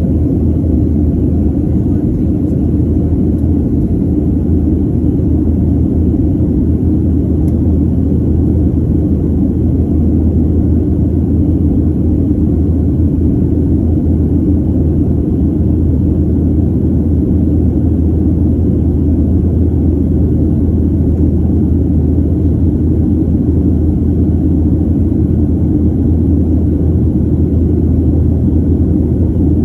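Cabin noise of a Southwest Airlines Boeing 737 during the climb after takeoff: the jet engines and the air rushing past the fuselage make a loud, even rumble with a deep hum, unchanging throughout.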